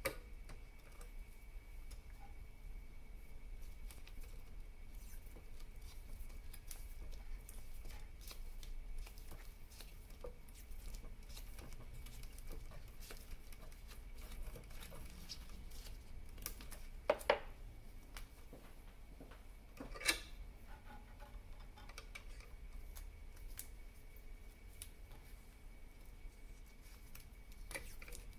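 Black vinyl electrical tape being pulled off its roll and wound by hand around a bundle of wires, with a faint crackle of the tape unrolling. A few sharper snaps stand out: two close together just past halfway and another a few seconds later.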